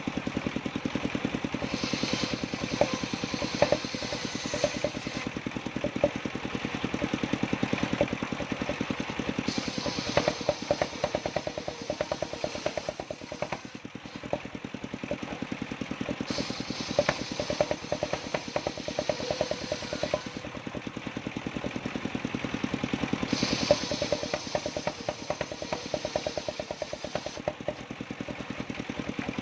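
Engine-driven mobile circular saw running, its engine pulsing steadily while the blade cuts jowar wood. The hissing cutting sound swells four times, a few seconds each, as the blade passes through the wood.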